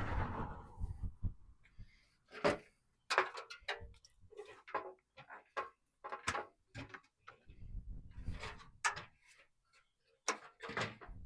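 Irregular clicks, knocks and clinks of hand tools and metal fasteners being handled while body panels are unbolted from a car, with a short rush of noise fading out in the first second.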